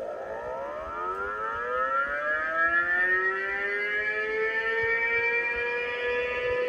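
Electronic sci-fi sound effect from a CB radio sound module. Several layered tones rise together like a siren wind-up over about three seconds, then level off and hold steady.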